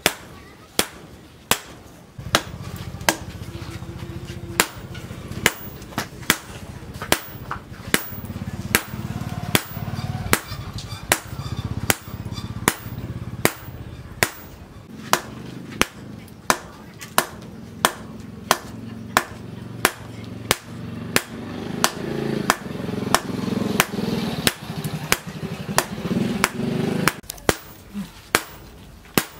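Hand hammer forging a red-hot steel cleaver blank on a steel post anvil: sharp, evenly paced blows, a little over one a second.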